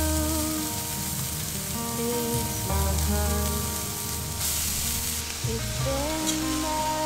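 Chopped onion, garlic and chili sizzling in hot oil in a frying pan on a wood stove as they are stirred. The sizzling gets stronger a little after four seconds in, around when ground meat goes into the pan. Background music plays over it.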